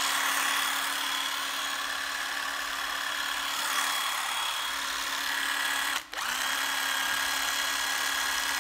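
Hitachi 12V cordless drill-driver spinning free with no load, its motor giving a steady, smooth whine: it runs very quietly, with no rough noise. The motor stops briefly about six seconds in, spins back up with a rising whine, and stops at the end.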